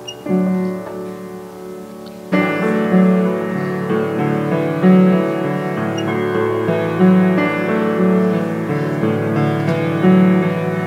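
Slow instrumental keyboard music, piano-like, with sustained chords; soft at first, then fuller and louder from about two seconds in.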